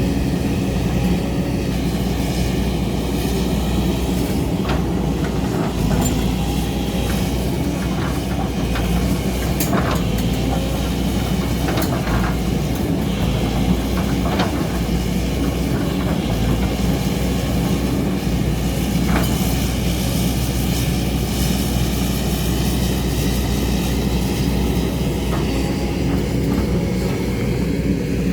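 JCB excavator's diesel engine running steadily under working load, with a few scattered sharp knocks and clanks of the bucket against rock.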